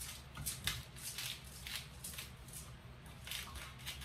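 Salt and pepper being put onto a whole raw chicken: a run of short, irregular scratchy strokes, two or three a second.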